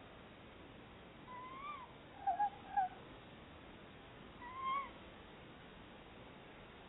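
Tawny owls calling to each other: a rising-then-falling call about a second in, a quick run of three short lower notes, then another rising call around four and a half seconds in.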